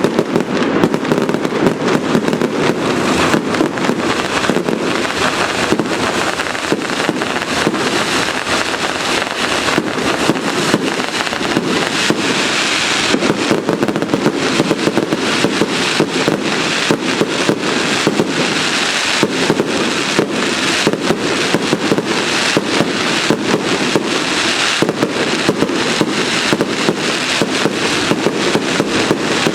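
Fireworks going off in a dense, unbroken barrage: rapid bangs and crackling packed closely together, with no let-up.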